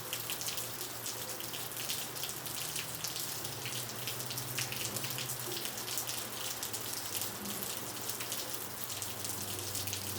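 Heavy rain falling hard on asphalt, a steady dense hiss with many sharp drop spatters, over a low steady hum.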